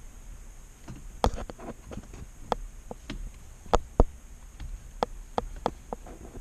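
Sharp metallic clicks and taps, irregularly spaced, from a hand tool working a T30 security Torx bolt out of the steering-wheel airbag mount; the loudest few come about a second in and near the middle.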